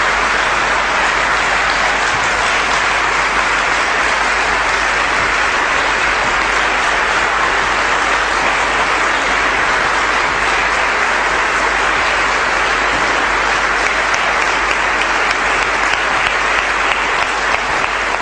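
Audience applauding: dense, steady clapping from a large crowd that keeps going without a break.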